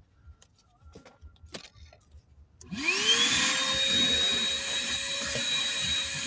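A few faint clicks and knocks, then about three seconds in a vacuum cleaner switches on. Its motor whine rises quickly and settles into a steady high whine with a hiss.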